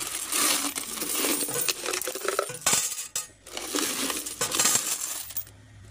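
Loose coins rattling and clinking inside a plastic jar as it is handled, in two long spells with a short pause about three seconds in.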